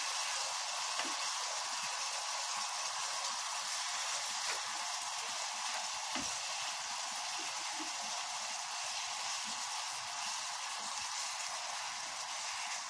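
Marinated beef strips sizzling steadily in an oiled frying pan, with a few faint clicks of metal tongs as the meat is turned.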